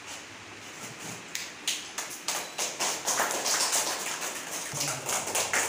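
Hand clapping from a small audience in a room: a few scattered claps at first, thickening into steady applause about three seconds in.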